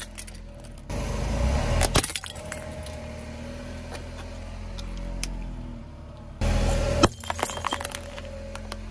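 Car tyre rolling over and crushing small plastic toys: hollow plastic cracking and crunching under the tyre, with a steady low rumble underneath. There are two louder spells of crunching, about a second in and again about six and a half seconds in, each ending in a sharp crack.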